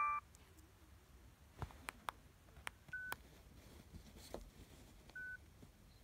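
Huawei G7300 mobile phone: a message tone cuts off right at the start. Then come faint clicks from presses on the phone and two short single-pitch key beeps, about three and five seconds in.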